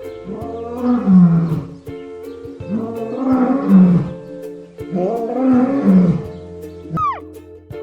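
Lion roaring three times, each call long and falling in pitch, over background music. A brief high falling cry comes near the end.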